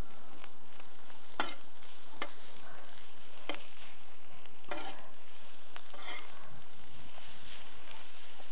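Kothu parotta mix of parotta pieces, egg and chicken curry sizzling steadily in a hot pan, with a metal spatula scraping and tapping through it about once a second as it is stirred.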